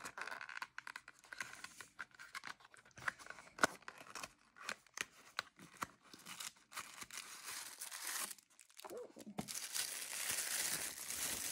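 Cardboard advent-calendar box being handled and opened, with many small scrapes, taps and tearing. From about nine seconds in, tissue paper crinkles steadily as it is unwrapped.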